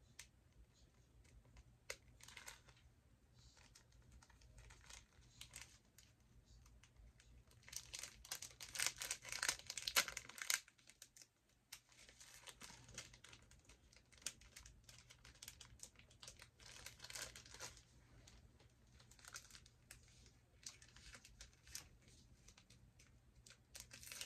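Small clear plastic packet crinkling as it is handled and picked open, in scattered short rustles. About eight seconds in comes a denser, louder spell of crinkling lasting a couple of seconds.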